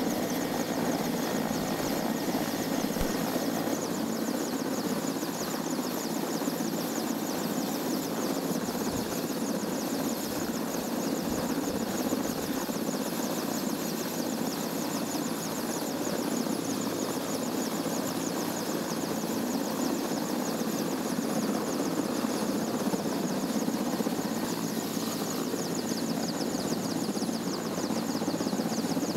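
A helicopter running steadily: an even drone with a fast flutter in its high whine.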